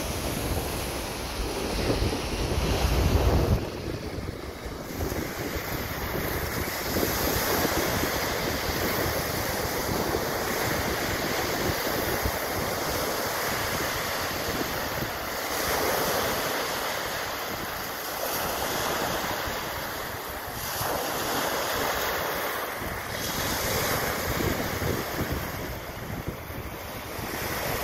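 Wind-driven waves breaking and washing onto a stony lakeshore, rising and falling in slow swells. Gusts of wind buffet the microphone with a heavy rumble, strongest in the first few seconds.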